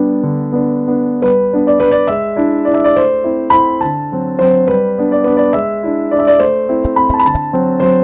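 Background piano music: a gentle melody of single notes over lower held notes.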